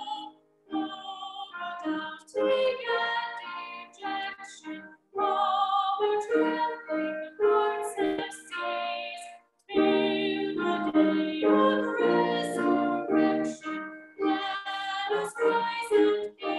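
A woman singing a liturgical song solo, notes held with vibrato, in phrases broken by short breaths.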